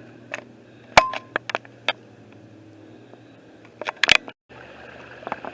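A few sharp clicks and knocks over a faint steady hum: the loudest about a second in, a few more just after, and another cluster about four seconds in. The sound cuts out completely for a moment just after that cluster.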